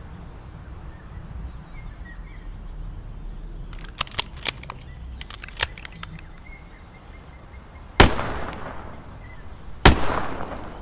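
Smith & Wesson Model 360J revolver firing two shots about two seconds apart, each with a long echoing tail. A few sharp clicks come before them, a couple of seconds earlier.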